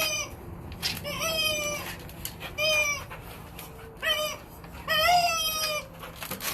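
Yellow Labrador retriever making squawky, chicken-like cries while rolling on its back, about one a second, each call dropping in pitch.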